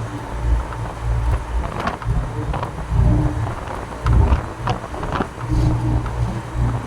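Truck in motion heard from inside the cab: a low rumble of engine and road that swells and fades every second or so, with scattered sharp rattles.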